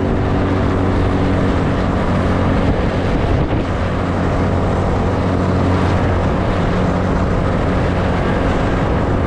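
A car running: a steady low engine hum under constant road and rushing noise, with no sudden changes.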